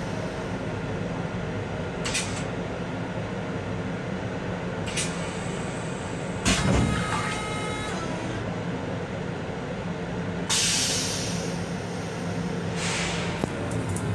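LIRR M7 railcar toilet's flush cycle: short bursts of hissing rinse water into the stainless steel bowl and a sudden thump about six and a half seconds in, over the steady low rumble of the train.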